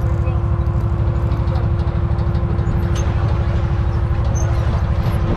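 Side-by-side UTV engine running steadily with a fast, even low pulse and a steady whine on top, heard from on board the moving vehicle.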